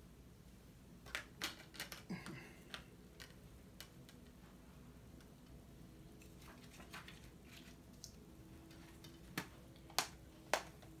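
Blu-ray steelbook case and its discs being handled: scattered light clicks and taps of plastic and metal, then three sharper clicks about half a second apart near the end.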